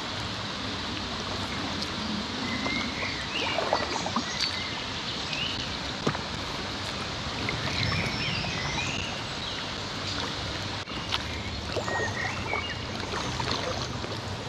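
Packraft paddling on a river: paddle strokes splashing over the steady rush of flowing water, with a few sharp knocks. Short bird chirps come several times.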